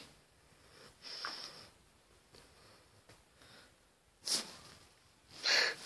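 A few short, soft sniffs and snorting breaths close to the microphone, spread out with quiet gaps, with a sharper sniff about four seconds in and a longer breath near the end.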